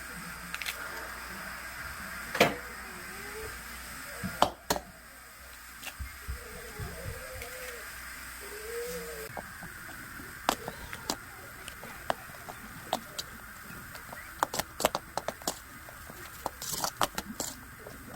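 Kitchen utensils and dishes clicking and knocking, a few louder knocks among many light clicks, over a steady background hiss.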